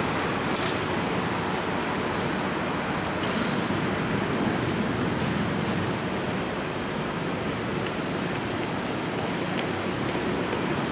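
Steady city street traffic noise, an even rumble and hiss with no single vehicle standing out.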